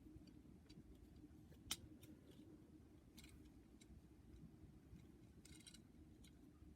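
Near silence with a low hum, broken by faint clicks from a small plastic action figure being handled: one sharper click a little under two seconds in, a few softer ticks, and a brief rustle near the end.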